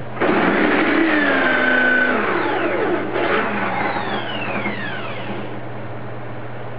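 Corded electric drill, clamped bit-up, running as a wooden rod is pushed down onto the spinning bit. It starts suddenly and runs for about two seconds, then its whine falls in pitch as the motor spins down over the next few seconds.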